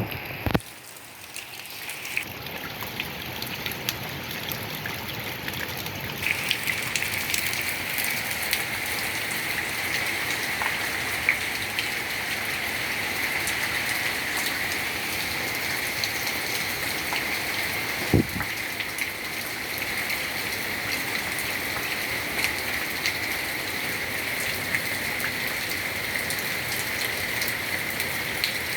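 Heavy rain pouring down: a steady hiss with the patter of drops hitting surfaces. A knock just after the start and another past the middle.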